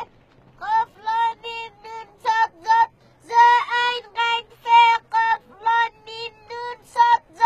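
A young child chanting a reading lesson aloud from a school primer in a high sing-song voice, short syllables about three a second, almost all on one pitch.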